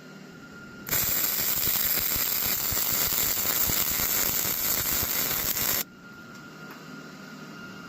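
Electric welding arc crackling and sizzling steadily as a weld bead is run on steel. It starts suddenly about a second in and cuts off abruptly after about five seconds.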